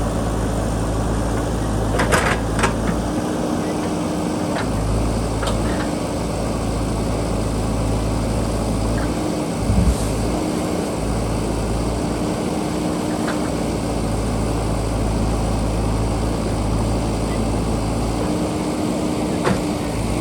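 JCB backhoe loader's diesel engine running steadily under work, its deep note dropping away briefly a few times, with a few sharp knocks, one about two seconds in and another near ten seconds.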